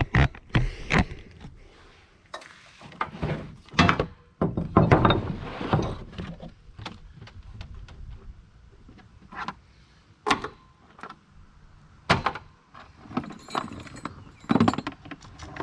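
Rummaging through a box of chainsaw chains: irregular metal clinks and rattles with scattered knocks.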